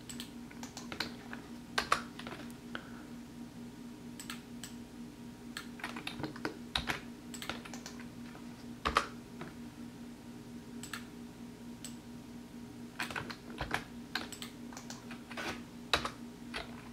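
Computer keyboard typing: scattered, irregular keystrokes with a busier run of keys near the end, over a steady low hum.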